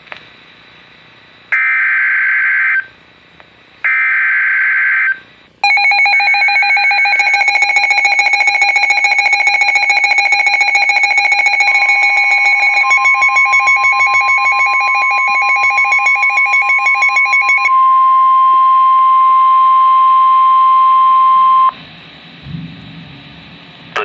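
NOAA Weather Radio receivers sounding an Emergency Alert System warning. First come two short screechy bursts of SAME digital header data. Then the receivers' electronic alarm beeps in rapid pulses for about twelve seconds, and partway through it the steady 1050 Hz NOAA warning alarm tone joins in, holds about ten seconds and cuts off suddenly, followed by a brief low thump.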